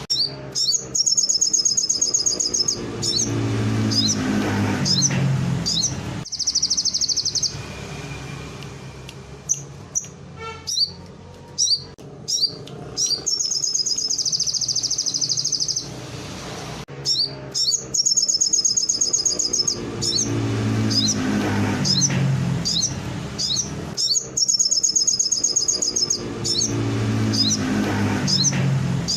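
Sogon songbird singing canary-learned phrases: fast, high trills lasting one to two seconds, repeated several times, with short sharp chips between them, over a low background rumble.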